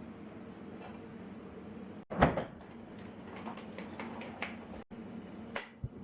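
A sharp knock about two seconds in, followed by a run of light clicks and taps and one more near the end, over a steady low hum of room tone.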